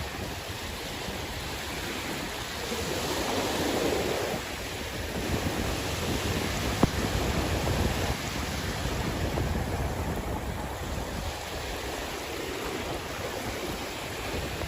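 Sea waves washing in, rising and falling in swells, with wind rumbling on the microphone. A single sharp click about seven seconds in.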